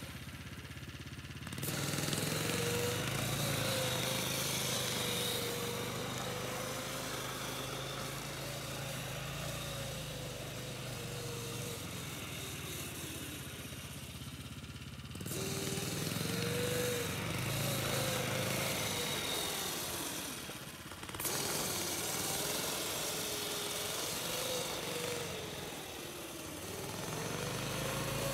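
Small snowmobile engines running: a steady low idle close by, with the Yamaha SRX 120 kids' snowmobile's engine rising and falling in pitch as it is ridden around.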